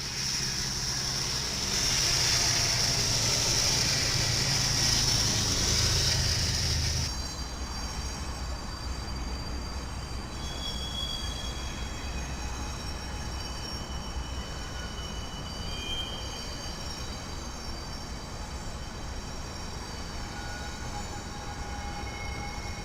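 Train rolling past on the rails, with a loud high hiss of wheels on track over a low rumble. About seven seconds in it drops abruptly to a quieter, steady rolling sound with short, faint wheel squeals.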